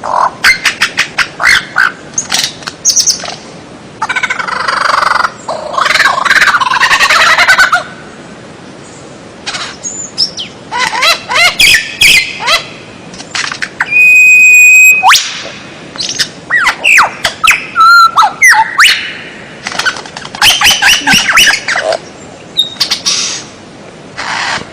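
Songbird singing a varied, loud song: quick chirping and trilled phrases, harsh rasping bursts, and one long steady whistle about halfway through.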